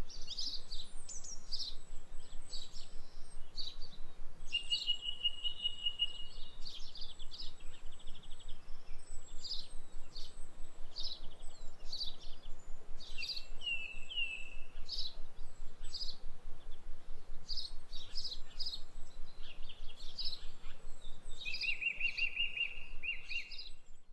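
Birds chirping and singing: many short, high chirps one after another, with a few brief trills now and then.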